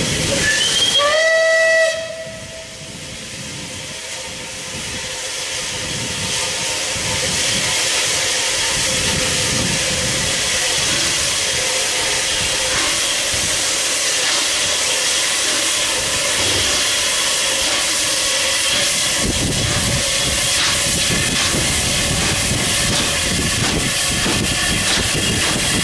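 Unrebuilt Bulleid West Country class Pacific steam locomotive sounds one short whistle blast about a second in. Then comes a loud, steady hiss of steam from its open cylinder drain cocks as it pulls away, building over the first few seconds, with a deeper rumble joining in about three-quarters of the way through.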